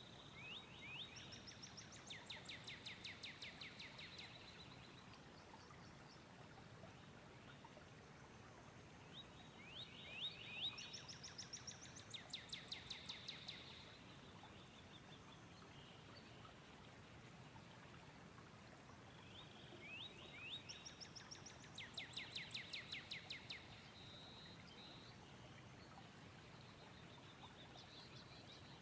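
A songbird repeating the same song about every ten seconds, three times with a fourth starting at the very end: a few quick introductory notes, then a rapid trill of about two seconds. Under it is a faint steady hiss of outdoor ambience.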